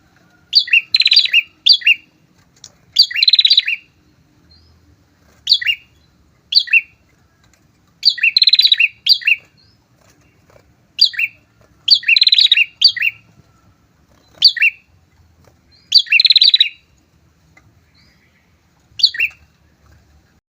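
A pair of prinias (prenjak) calling: loud, rapid chattering phrases under a second long, repeated every second or two, with short single chirps between them.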